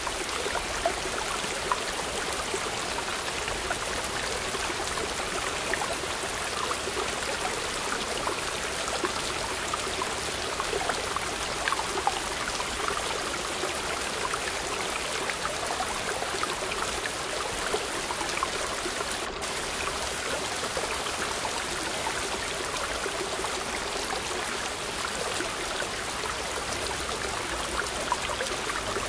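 Mountain stream running and splashing over boulders in small cascades, a steady rush of water.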